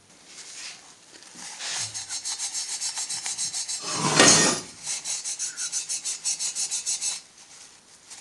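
Paper towel wet with acetone scrubbed quickly back and forth on the cast-aluminium clutch release bearing guide spigot of a bell housing, about six strokes a second, with one louder rustle about four seconds in. The scrubbing stops about seven seconds in.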